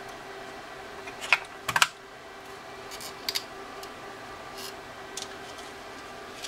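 Batteries being pushed into the plastic battery compartment of a TI-83 Plus calculator and the case being handled. A few sharp clicks and knocks, the loudest cluster coming a couple of seconds in, with a faint steady hum underneath.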